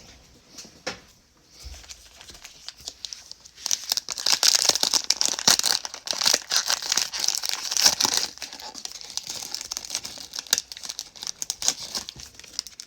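Trading-card pack wrapper being torn open and crinkled by hand. The crackling grows loud after a few seconds, then goes on more softly as the wrapper is handled.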